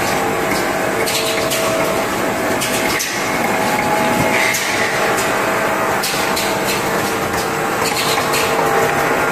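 Automatic laundry-detergent bottle filling and capping line running: steady machine noise with a constant hum and irregular sharp clicks and short hisses.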